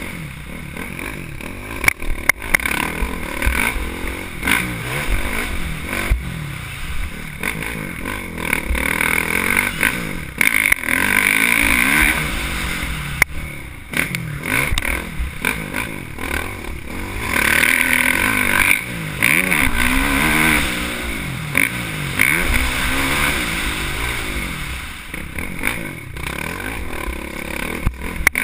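Dirt bike engine revving up and down as the motorcycle is ridden along a twisty trail, its pitch rising and falling with each burst of throttle. A few sharp knocks come through.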